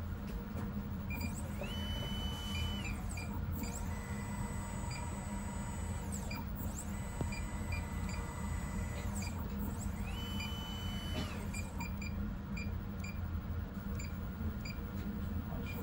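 Stepper motor of a desktop dip coater moving its hanger arm: a whine that rises in pitch, holds for about a second and falls away, twice. Short beeps from the touch-panel keypad and a steady low hum run underneath.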